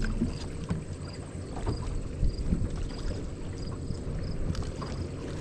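Wind rumbling on the microphone aboard a bass boat, with scattered light clicks and knocks as a freshly caught smallmouth bass is handled.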